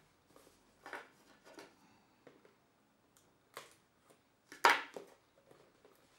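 A spinning-reel cardboard box being opened and handled by hand: scattered light rustles and clicks of cardboard and packaging, with one louder rustle about four and a half seconds in.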